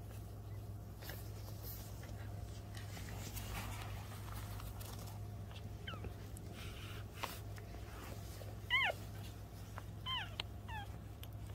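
Newborn Pomeranian puppies squeaking: a faint squeak midway, a louder rising-then-falling cry, then two short falling squeaks near the end.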